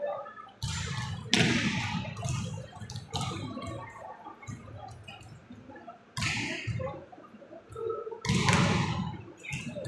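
Volleyballs being spiked and bouncing on an indoor court: a string of sharp slaps and thuds at irregular intervals, each trailing off in the hall's echo, the loudest about a second in and near the end.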